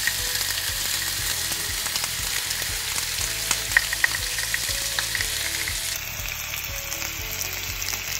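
Boneless chicken thighs sizzling on a hot cast iron grill pan: a steady hiss with small scattered crackles.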